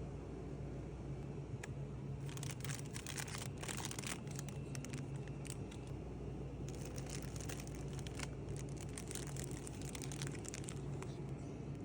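Crinkling and rustling of food packaging being handled, in two spells of crackly bursts, over a steady low hum.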